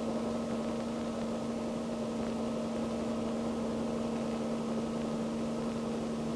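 A steady mechanical hum over a bed of hiss, even throughout with no rise, fall or beat.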